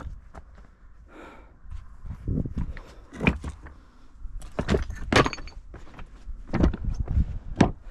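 Footsteps crossing loose, flat dry-stacked stones, the rocks clinking and clattering as they shift underfoot in an irregular rhythm of about one step a second.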